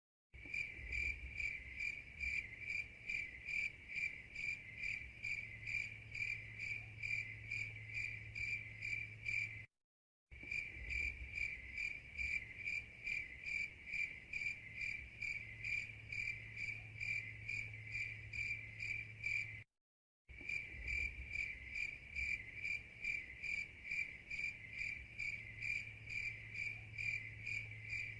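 Crickets chirping in a steady, even rhythm of high pulses: a looped recording that cuts out for a moment about every ten seconds before starting again.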